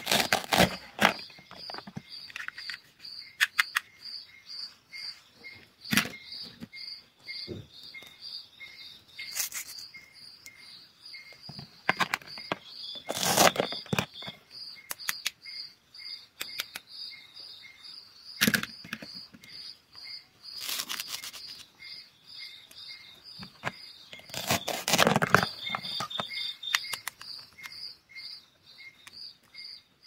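Plastic toy fruit and vegetables being cut with a plastic knife on a plastic cutting board, pulled apart and put into a plastic basket: scattered clicks and clacks with a few longer scraping rasps. Crickets chirp steadily in the background.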